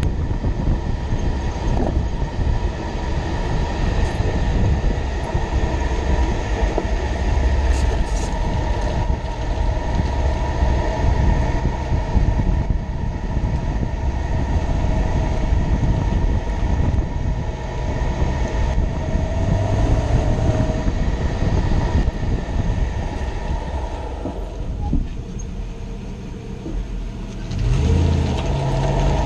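2006 Toyota Tundra on the move: a steady low rumble of road and drivetrain noise with a faint steady whine. It eases off for a couple of seconds near the end, then picks up again.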